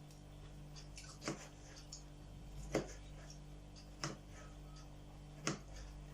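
Kitchen knife chopping through pickled cucumbers onto a cutting board, four sharp knocks about a second and a half apart, over a faint steady hum.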